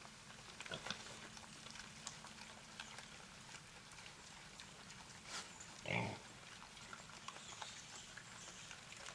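Wild hogs feeding: scattered small crackles and rustles of rooting through leaf litter, with one short, loud squeal from a hog about six seconds in.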